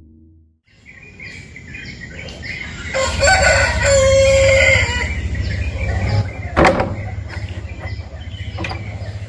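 A rooster crows once, loudly, about three seconds in, over small birds chirping. A sharp knock comes a few seconds later.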